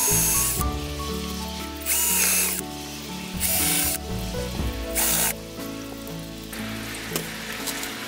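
Cordless drill driving screws into wooden pallet deck boards in four short bursts, the last one shortest.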